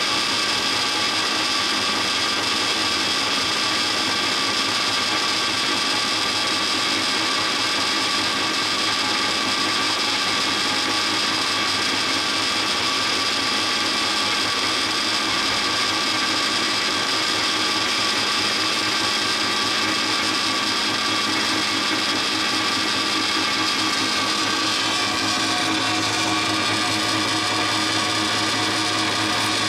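1969 DoALL C-70 horizontal band saw running steadily in automatic cycle, blade drive and hydraulic bar feed working with a whine of several steady tones. About 25 seconds in, the tone shifts and a lower hum joins it.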